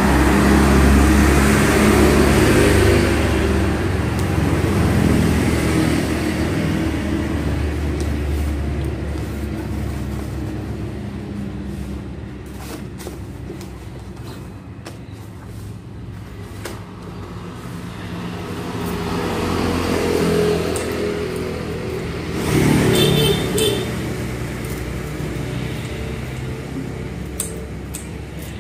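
Road traffic: a motor vehicle's engine rumble passes close and fades over the first ten seconds, and another vehicle swells and passes about twenty seconds in. There is a brief higher-pitched tone about three quarters of the way through.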